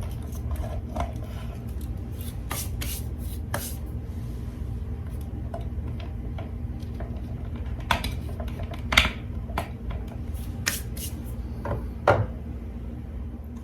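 Stiff electrical wires and wire connectors being folded and pushed back up into a ceiling electrical box: scattered rubbing, scraping and sharp clicks, the loudest ones in the second half, over a steady low hum.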